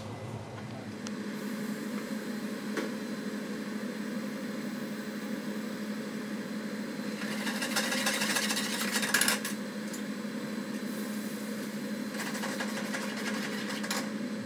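Prawns sizzling in a frying pan over a high gas flame, with bursts of hissing and spoon scraping as they are stirred, once about halfway through and again near the end, over the steady hum of a commercial kitchen's extractor and burners.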